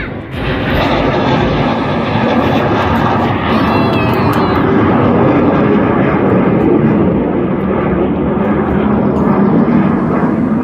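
Jet engine noise from a pair of fighter jets flying overhead: a loud, steady rushing noise that builds over the first second and then holds.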